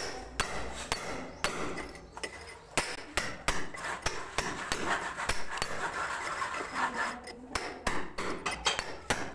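Hammer repeatedly striking a cold chisel held against a plastered masonry wall, chipping out a hole for plumbing. Sharp metallic blows come in an uneven rhythm of about two a second, with bits of plaster scraping and falling between them.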